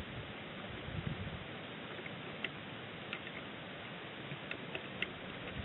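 Rain falling steadily on an outdoor nest camera: an even hiss with scattered sharp ticks of drops striking close to the microphone.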